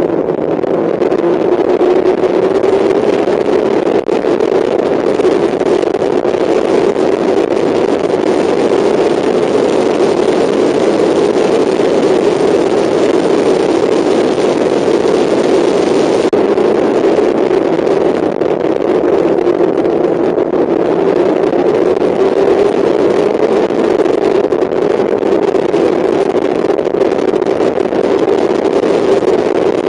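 Mazda MX-5 four-cylinder engine at racing revs, heard inside the car, its pitch drifting slowly up and down as the throttle varies, over steady wind and road noise.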